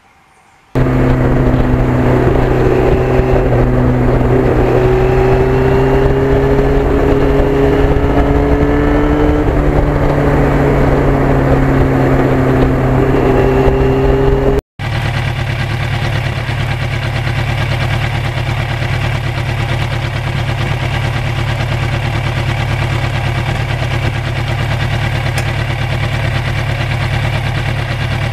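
1991 Yamaha FZR1000 inline-four engine running at a steady cruising speed, heard from the bike while riding, its pitch climbing slowly for several seconds. About fifteen seconds in, an abrupt cut leads to a second, steadier and slightly quieter stretch of riding.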